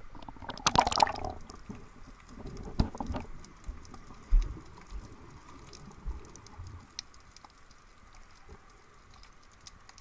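Action camera dipping below the sea surface with a splash and gurgle about a second in, then muffled underwater sound with a few low thumps and scattered faint sharp clicks.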